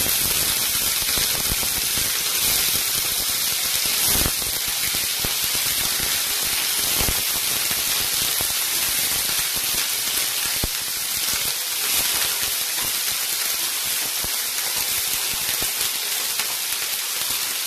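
Paneer cubes frying in hot mustard oil in a pan: a steady, even sizzle with a few faint clicks as more cubes go in.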